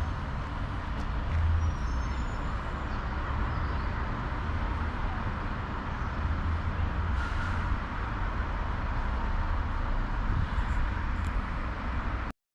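Steady outdoor background rumble and hiss, breaking off in a brief dropout to silence just before the end.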